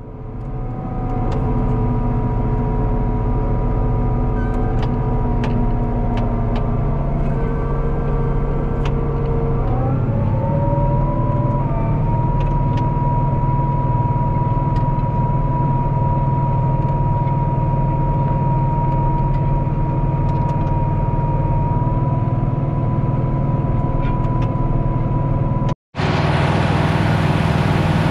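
Caterpillar 3208 V8 diesel of a White 4-225 tractor running under load while pulling a disc harrow. About ten seconds in the engine speed rises, then holds steady with a high whine. Near the end the sound cuts out for an instant and comes back with more hiss.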